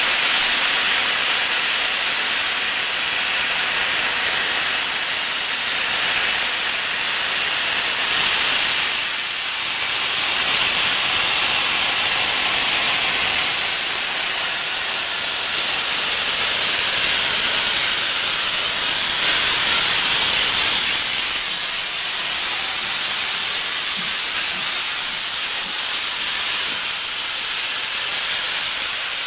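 Steam hissing steadily from GWR Manor-class 4-6-0 locomotive 7802 Bradley Manor as it stands, with steam escaping around the cylinders at the front end; the hiss swells and eases a little.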